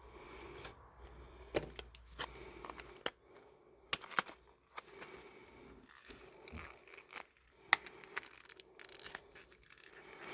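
Faint handling noises from a laptop RAM swap: plastic crinkling and tearing, with scattered sharp clicks of small parts being handled.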